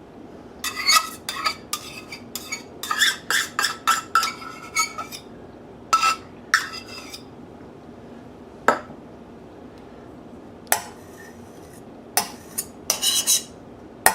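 Kitchen utensil clinking and scraping against a dish as about half a cup of mayonnaise is measured out for a topping. There is a quick run of clinks in the first five seconds, then single clinks every second or two.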